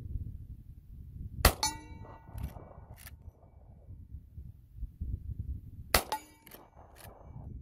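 Two shots from a Rossi R92 .44 Magnum lever-action rifle loaded with .44 Special rounds, about four and a half seconds apart. Each is followed by a few metallic clacks as the lever is worked to chamber the next round. The first shot leaves a metallic ringing for about a second.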